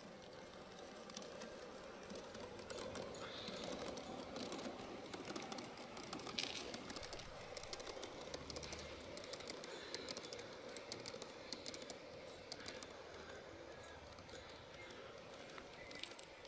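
LGB garden-scale model train, an electric locomotive of the Rhaetian Railway Ge 4/4 III type hauling sliding-wall wagons, running on outdoor track: a faint steady motor hum with quick clicking of wheels on the rails, thickest in the middle.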